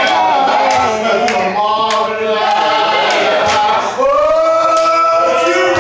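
A man chanting a prayer in drawn-out, sung tones, with other voices joining under him. A long note is held near the end.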